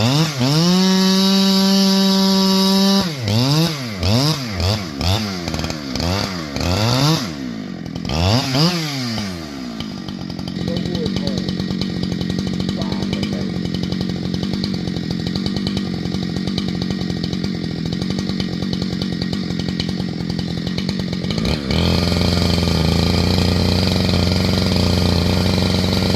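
Chainsaw revved in a string of quick throttle blips, held at high revs for a couple of seconds near the start. After about ten seconds the revving stops and an engine runs at a steady pitch.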